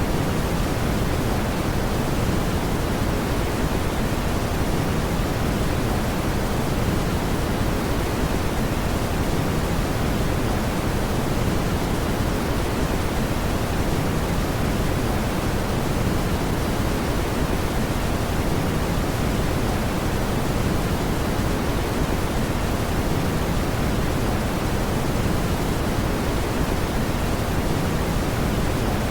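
Steady brown noise: an even, deep rumbling hiss weighted toward the low end, unchanging throughout.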